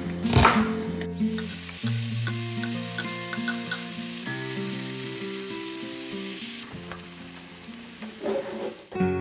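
A knife chopping through an onion on a wooden cutting board, then from about a second in diced onion and tomato sizzling steadily in a hot skillet, the sizzle dropping away after several seconds. Soft guitar music plays underneath.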